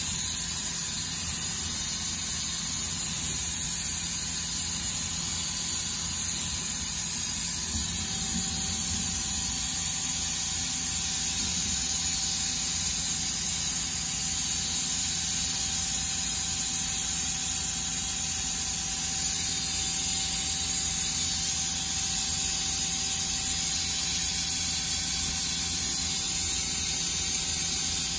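Steady hiss and hum of a powered-up Mazak QTN-200MY CNC turning center, with a faint steady tone that comes in about eight seconds in.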